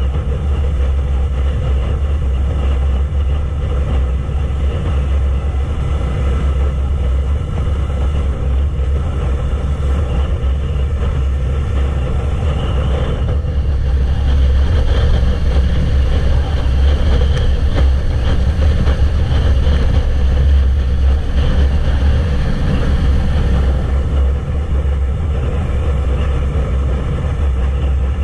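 Wind rushing over the microphone of a moving Yamaha YZF-R3, with its 321 cc parallel-twin engine running steadily at cruising speed underneath. The sound grows louder and brighter about halfway through and eases back near the end, as the bike speeds up and then settles.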